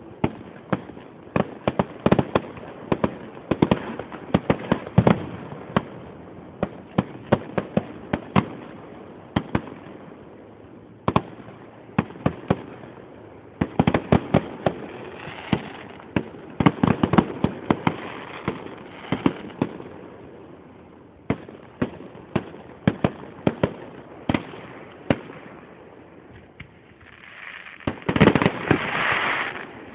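Fireworks display: aerial shells bursting in a string of sharp bangs, coming in thick clusters with thinner gaps between, and a louder, sustained noisy rush near the end.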